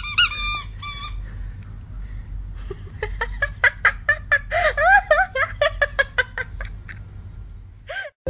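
Rubber squeaky dog toy squeaked several times in quick succession near the start, followed from about three seconds in by a run of short, high squeaks and clicks.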